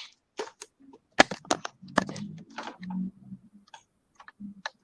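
A string of irregular light clicks and knocks, around fifteen in a few seconds, with faint low rumbling between them.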